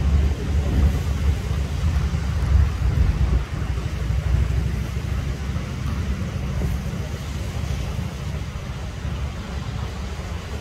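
Small waves breaking and washing onto a sandy beach, under a heavy low rumble of wind buffeting the microphone that is strongest in the first few seconds.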